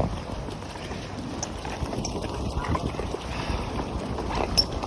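Gale-force wind buffeting the microphone: a steady low rumble, with a few faint clicks.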